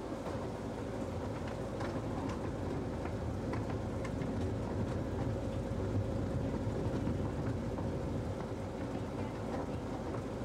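The miniature railway train 'Winston Churchill' running: a steady low engine drone with wheel and rail noise, heard from an open carriage behind the locomotive, with a few faint clicks.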